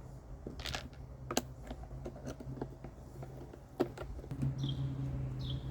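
Irregular light clicks and taps of a long-shank screwdriver and screws against the plastic housing of a backpack vacuum as the housing screws are started and driven.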